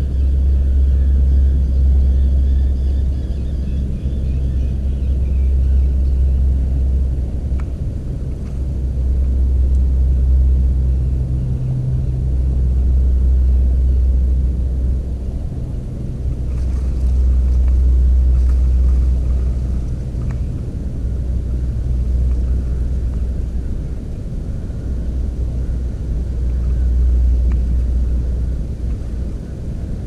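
A loud low rumble that swells and fades every few seconds, with a faint steady hum just above it.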